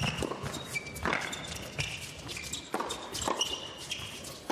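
Tennis ball struck back and forth with rackets in a doubles rally: several sharp hits about a second apart, with short high squeaks of tennis shoes on the court between them.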